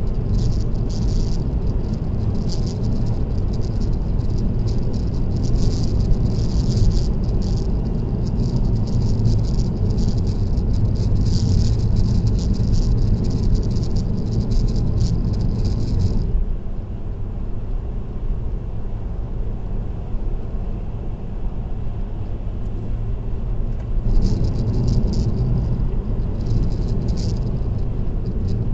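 Steady road and tyre rumble of a car at expressway speed, heard from inside, with a light, crackly rattle of something loose in the cabin coming in clusters. The rattle stops a little past halfway, when the rumble also eases, and returns briefly near the end.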